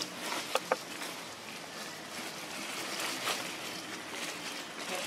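Dry leaf litter rustling as a baby long-tailed macaque walks and forages, with two short sharp clicks close together about half a second in.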